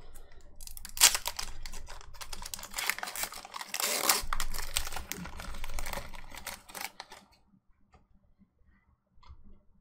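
Foil wrapper of a Pokémon booster pack being torn open and crinkled as the cards are pulled out, with loud crackles about a second in and again around four seconds. The rustling stops about seven seconds in.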